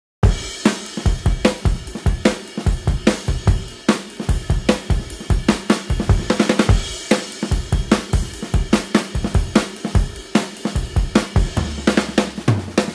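Background music with a steady drum-kit beat of kick, snare and hi-hat; a low bass note comes in near the end.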